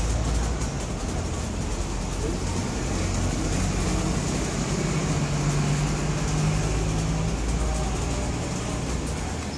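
Steady city street traffic noise, vehicle engines running, with a low steady hum for a few seconds in the middle.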